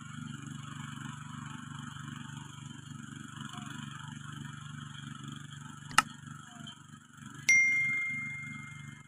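A ProQuip mini cultivator's engine runs steadily while tilling, heard from a distance. About six seconds in there is a single sharp click. A second and a half later comes a loud bell ding that rings on and fades: the click-and-bell sound effect of a subscribe-button overlay.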